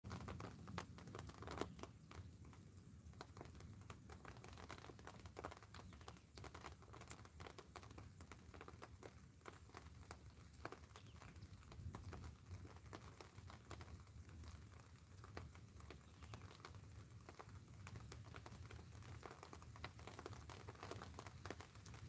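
Light rain: scattered, irregular drops ticking and pattering faintly on the fabric of a patio umbrella overhead, over a low steady rumble.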